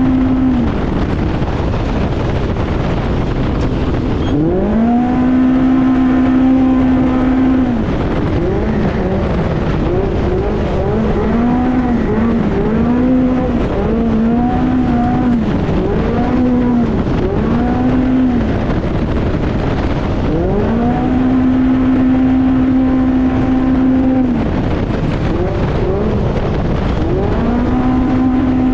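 Off-road race vehicle's engine running hard, over a constant loud rushing noise. The revs climb and hold high, then rise and fall in quick short surges through the middle as the throttle is blipped and lifted, before climbing and holding high twice more.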